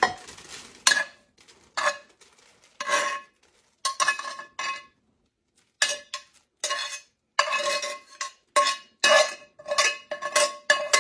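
A spoon scraping and knocking fried sausage out of a metal skillet, the pan ringing with each strike. The clanks and scrapes come irregularly, with a short quiet gap about five seconds in and quicker strikes near the end.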